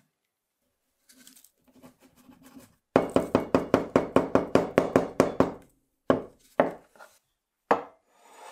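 A quick run of sharp knocks, about six a second for two and a half seconds, then a few single knocks: hard strikes on wood, as when working on a wooden hand plane.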